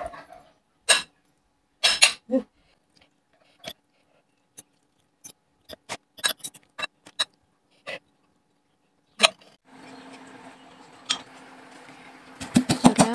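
Metal fork and spoon clicking and scraping against a ceramic bowl in sparse, irregular strikes as cooked fish flesh is picked off the bones. Near the end a steady low hum comes in, and a pestle starts pounding dried chillies in a mortar with rapid, even strikes.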